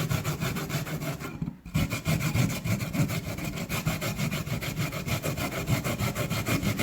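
Raw turnip being rubbed back and forth over a fine hand grater: quick, repeated scraping strokes with a brief break about a second and a half in.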